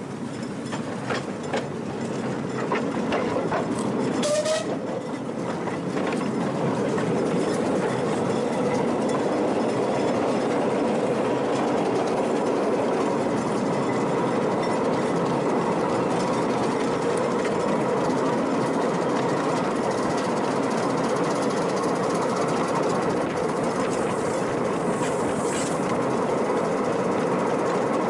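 Miniature steam railway train under way, heard from a riding car: wheels running on the track with a steady rumble. There are a few clicks and a short squeal in the first five seconds.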